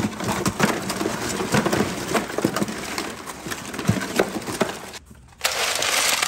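Live blue crabs tumbling out of a wooden bushel basket onto ice in a plastic cooler, their shells and claws clicking and scraping against the basket, the cooler and one another in a quick run of small knocks. Just after five seconds the clatter stops and ice cubes rattle as a hand scoops them from a freezer ice bin.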